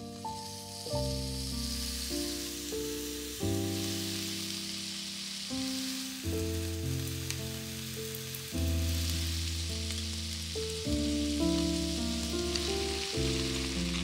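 Pieces of marinated beef fillet sizzling as they sear in oil in a hot nonstick frying pan. Background music with sustained chords plays under the sizzle.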